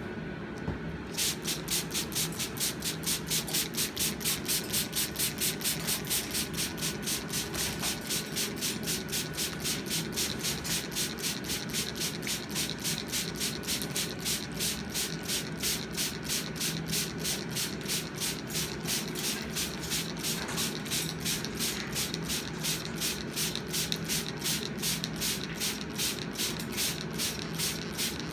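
Hand-held trigger spray bottle squirting water over and over at about three squirts a second, starting about a second in.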